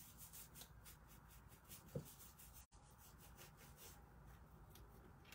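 Faint, quick strokes of a bristle paintbrush rubbing paint onto a box lid, with one small tap about two seconds in.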